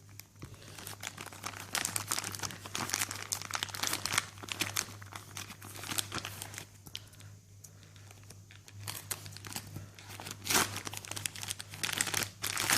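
Plastic and paper packaging crinkling and rustling as a small product box is opened and its contents unwrapped, in irregular crackles with a quieter stretch in the middle and a sharper crackle later on.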